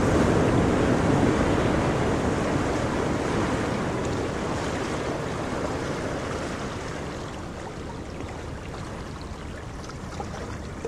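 Ocean water ambience: a steady rush of waves and sea water that slowly fades.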